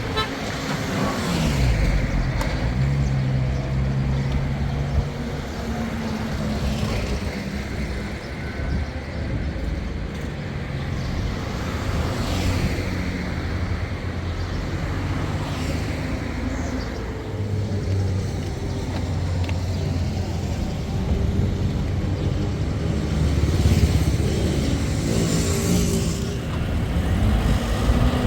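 Motor vehicle engine running as it drives, its low tone shifting up and down in pitch, with road and wind noise.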